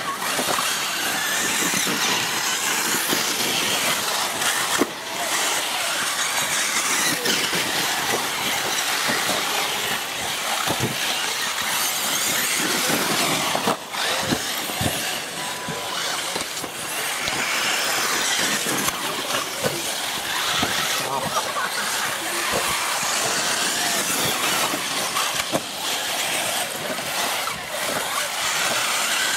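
Several radio-controlled model race cars running flat out around the circuit, their small motors giving a steady high-pitched whine that wavers up and down as they accelerate and brake.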